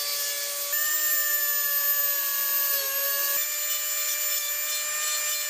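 Dremel rotary tool with an abrasive cut-off wheel grinding through the steel tabs of a drawer slide: a steady high-pitched whine over a grinding hiss. Its pitch shifts slightly about a second in and again just past the middle as the wheel bites.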